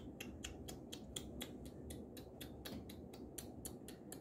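A faint, even series of sharp clicks, about four or five a second, over a low rumble.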